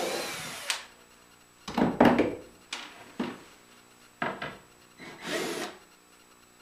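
Cordless drill running in short bursts, backing screws out of the wooden side rail of a router sled jig. Between the runs come wooden knocks and rubbing as the boards are handled.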